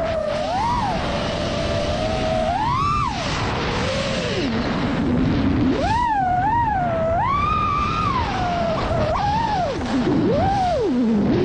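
iFlight Nazgul5 FPV quadcopter's brushless motors and propellers whining, the pitch sweeping up and down again and again as the throttle changes, over a steady rush of noise. The pitch dips lowest around the middle and again near the end.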